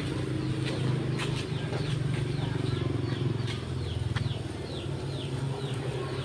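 Handheld sparkler fizzing, with scattered sharp crackles in the first half, over a steady low hum. From about halfway, a run of short falling chirps repeats two to three times a second.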